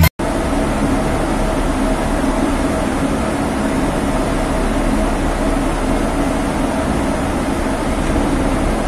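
Steady drone of a ship under way, its engine running evenly with a faint constant hum over a hiss, heard from the open deck.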